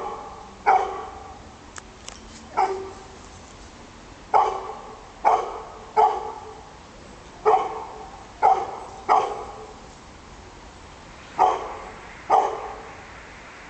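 A dog barking at a cat, about ten single loud barks at uneven intervals, each trailing off in an echo.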